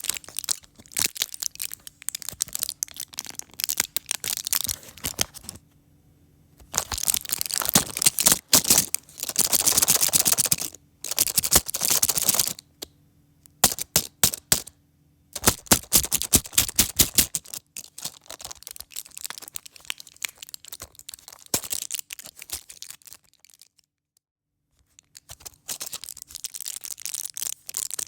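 A pack of pill tablets being handled, its packaging crinkling and crackling with sharp clicks, in bursts of a second or two separated by short pauses.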